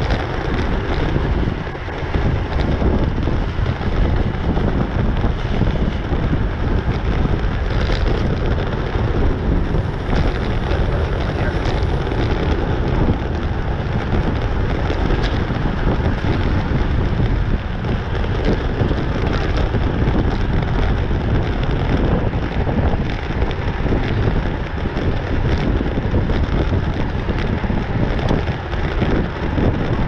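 Steady, loud wind buffeting the microphone of a camera on a road bike riding in a racing group at about 26 mph.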